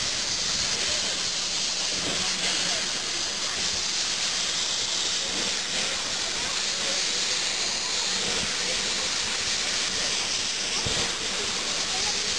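Small steam tank locomotive, a Prussian T4, with steam hissing steadily from its open cylinder drain cocks.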